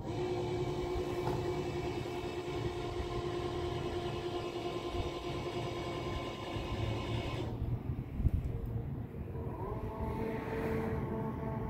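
Electric motor of a Bruno Out-Rider wheelchair lift whining steadily as it hoists a manual wheelchair up into a pickup's bed cap, then stopping about two-thirds of the way through. A sharp clunk follows about a second later, and a different, lower steady tone begins near the end.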